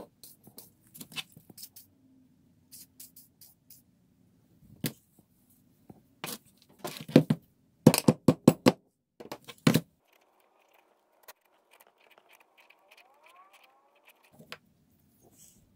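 A rubber mallet knocking on an old rusty Sears bench vise: quick runs of blows, loudest between about six and ten seconds in. Before them come lighter metal clicks and taps from handling the vise parts.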